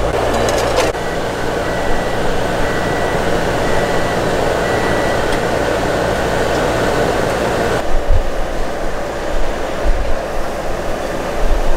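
Steady, loud machine-like whooshing noise. Faint short beeps repeat during the first few seconds, and the upper part of the noise drops away about eight seconds in.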